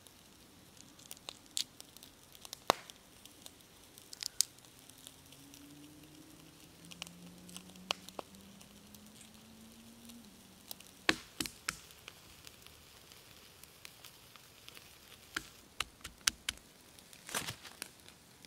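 Walnuts being shelled by hand: scattered sharp cracks and snaps as the husks are peeled and the shells pried apart, with softer crumbling between.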